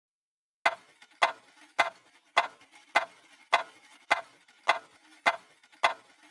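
Steady clock-like ticking, ten sharp ticks evenly spaced a little under two per second, starting just over half a second in.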